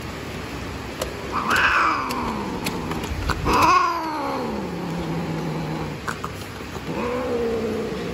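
A cat yowls during mating: three long, drawn-out caterwauls that slide down in pitch, the second the loudest.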